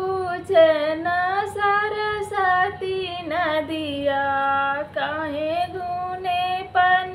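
A woman singing a folk wedding song (vivah geet) solo with no instruments, in long, drawn-out phrases whose pitch glides between notes.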